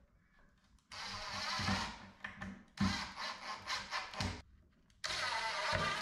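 Cordless driver running screws into a plywood cabinet base, likely through pocket holes: two runs of a second or two each, a short pause, then another run starting about five seconds in.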